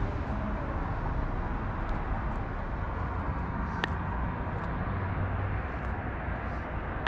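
Steady outdoor rumble and hiss, with a single sharp click about four seconds in.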